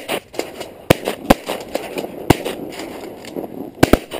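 Dry marsh reeds rustling and snapping close by as someone pushes through them, with a dozen or so sharp, loud cracks over a steady crackling rustle.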